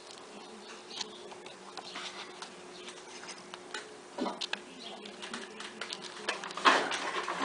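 Small clicks and rustles of hands handling phone parts and a double-sided adhesive tape frame, over a steady low hum, with a louder rustle about two-thirds of the way through.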